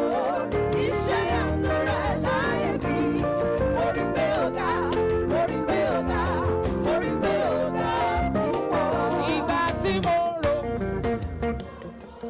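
Live worship band music with singing over guitar, bass and drums; the music drops away near the end.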